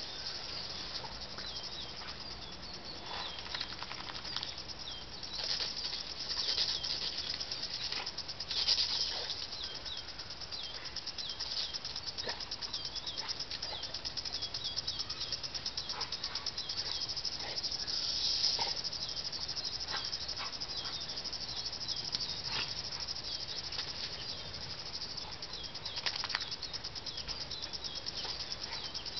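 Water spraying and pattering from a lawn sprinkler as a dog bites and laps at the jet, with a few short, louder splashy bursts.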